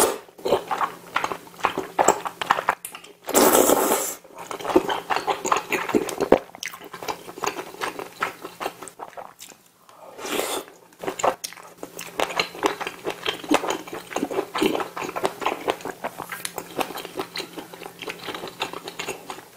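Close-miked eating of spicy tteokbokki: wet chewing and smacking, with three loud slurps of rice cakes and sauce off a ladle, near the start, about three seconds in and about ten seconds in.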